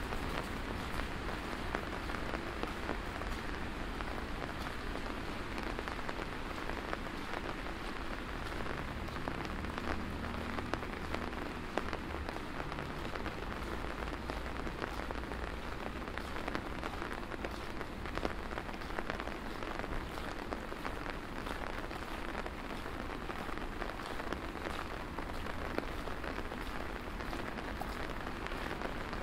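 Steady rain falling: an even hiss with many small, sharp ticks of individual drops.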